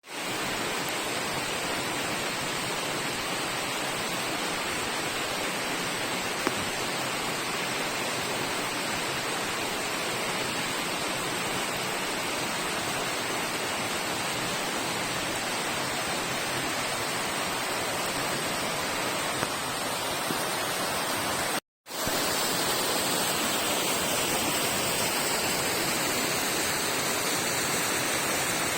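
Small waterfall's water falling and splashing: a steady rushing, with a brief dropout to silence about three-quarters of the way through where the recording is cut.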